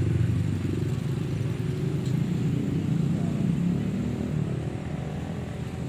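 A motor vehicle engine running close by, a steady low hum that fades slightly near the end.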